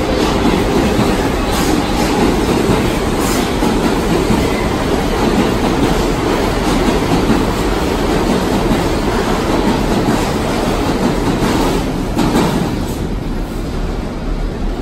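New York City subway train running on the track: a loud, steady rumble with wheels clacking over rail joints, easing a little near the end.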